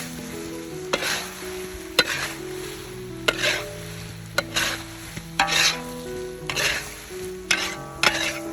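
Food frying in a pan, stirred and scraped with a utensil: a swish about once a second, several starting with a sharp click of the utensil against the pan, over soft background music.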